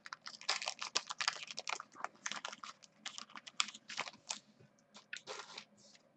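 Foil wrapper of a baseball card pack being torn open and crinkled in the hands: a quick, dense run of crackling rustles that thins out near the end.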